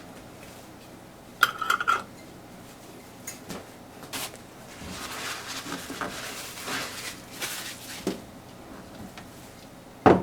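Kitchen utensils and dishes clinking and clattering: a ringing clatter about a second and a half in, scattered light knocks, a stretch of softer scraping in the middle, and a sharp knock near the end.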